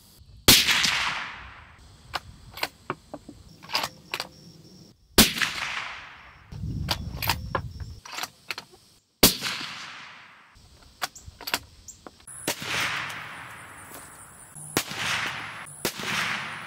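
Three suppressed shots from a 7mm-08 bolt-action rifle, about four seconds apart. Each is a sharp report followed by a long fading echo, with small clicks in between. Near the end comes another set of three reports with long echoes.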